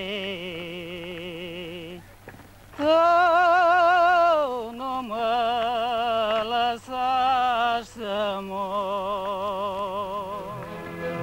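A solo voice singing a slow song in long held notes with wide vibrato, pausing briefly for breath between phrases.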